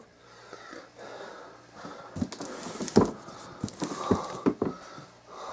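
Hands handling a cardboard vacuum-cleaner box: rubbing and scuffing over the cardboard and packing tape, with a few knocks, the loudest about three seconds in.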